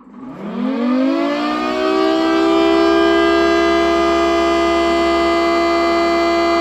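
3D-printed model Thunderbolt 1000T tornado siren, spun by its DC motor without the vacuum attached, winding up in pitch for about a second and a half and then holding a steady, loud wail: the opening of its programmed attack signal.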